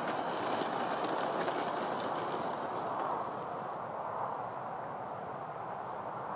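Freewing Su-35 model jet rolling out on its landing gear across a dirt strip, a steady rumbling rattle with fine crackling that eases off after about three seconds as the jet slows to a stop.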